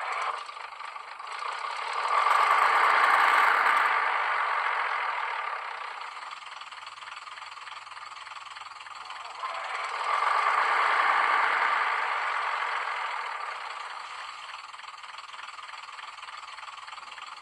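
Sound decoder in a Graham Farish N gauge Class 101 DMU model playing its diesel engine start-up through the model's small speaker. One engine starts and revs up about two seconds in, then settles to idle. The second engine starts about nine seconds in, revs up and settles, leaving both engines idling.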